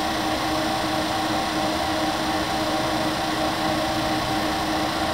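Warner & Swasey No. 3 ram-type turret lathe running, a steady mechanical hum with a few held tones from its motor and drive.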